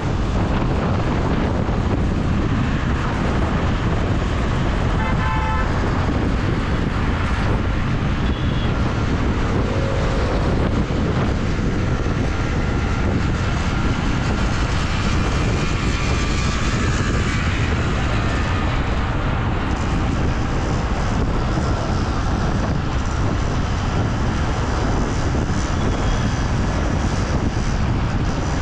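Steady road and wind rumble heard from a vehicle riding through city traffic, with a short vehicle horn toot about five seconds in.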